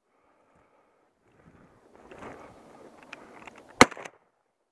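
Footsteps crunching and brushing through snowy brush, then one sharp shotgun blast from a 20-gauge Mossberg 500 pump shotgun about four seconds in, with a short rattle right after it.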